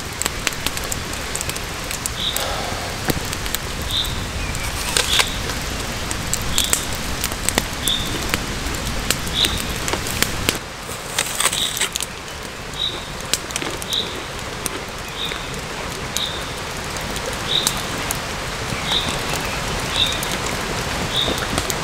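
Steady rain falling around a wood campfire that crackles with sharp pops now and then. A short high chirp repeats about once a second in the background.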